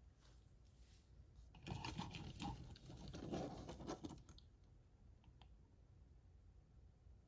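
Handling noise: about two and a half seconds of rustling and rapid clicking as small toy cars or their plastic packaging are handled, then two or three light clicks.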